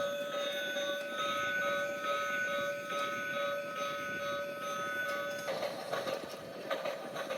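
Battery-powered toy train's electronic train sound effect: a steady chord of held tones with a light pulsing over it, stopping about five and a half seconds in, followed by a noisier clatter.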